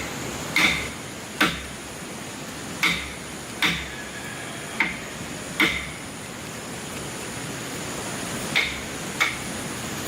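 Hammer strikes, about eight irregular blows with a short metallic ring after each, over a steady background hiss.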